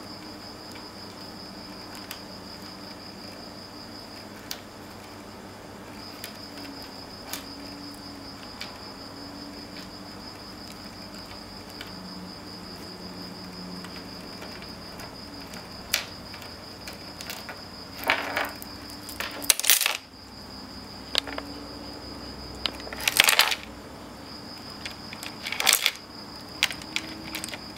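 A kitten batting at a metal chain keyring with glass crystal charms, which jingles and clinks in scattered light clicks and then in several louder rattling bursts in the second half. A steady high-pitched whine runs underneath.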